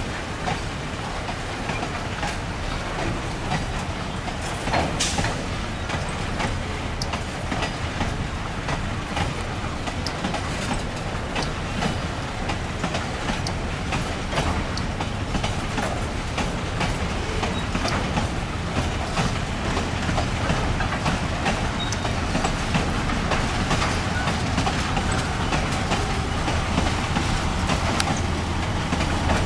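Empty steel ore wagons of a freight train rolling past, with a steady rumble and wheels clicking over the rail joints. A faint rising whine comes in near the end.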